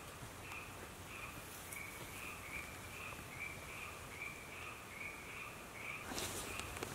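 Night ambience of a frog calling: a steady run of short, even croaks, about two a second. A louder rustling noise rises near the end.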